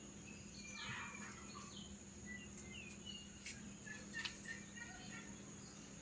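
Faint background of scattered short bird chirps over a steady high-pitched hum.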